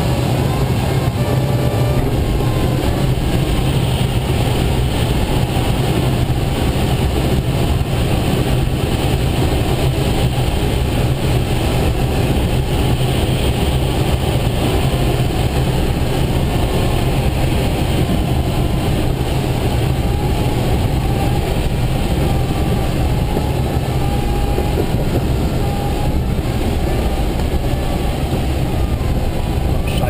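Steady rushing airflow around a two-seat glider's cockpit and canopy, with heavy wind noise on the microphone, as the glider descends on approach to a field landing.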